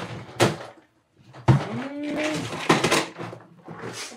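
Plastic tackle boxes and crankbaits being rummaged through and pulled out: a series of knocks and clatters with pauses between.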